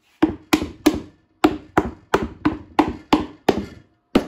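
Rubber mallet knocking the box joints of a pre-cut wooden bee box together, a run of about eleven blows at roughly three a second, with a short pause after the first three.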